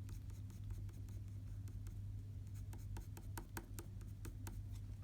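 Sharpened dark brown coloured pencil scratching on paper in quick short strokes, flicking in streaks of fur. The strokes come faster and crisper in the second half, over a steady low hum.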